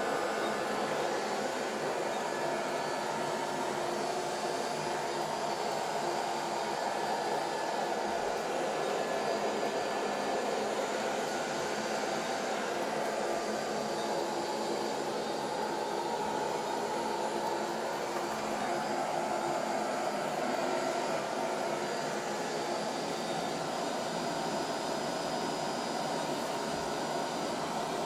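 ILIFE V50 robot vacuum cleaner running steadily as it vacuums a carpet, a constant whirring hum of its suction motor and brushes.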